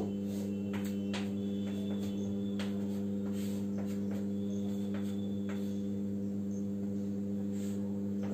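A steady electrical mains hum, the loudest sound throughout, with faint scattered taps and scratches of chalk drawing on a blackboard.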